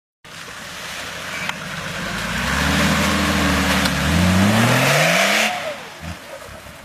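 Short-wheelbase Mercedes G-Class 4x4 pulling through mud: a steady engine note builds, then revs rise sharply for about a second and a half while the tyres churn mud, and the engine eases off about five and a half seconds in.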